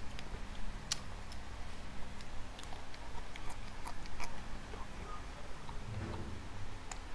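A person chewing a raw carrot stick close to the microphone, with sharp, irregular crunching clicks.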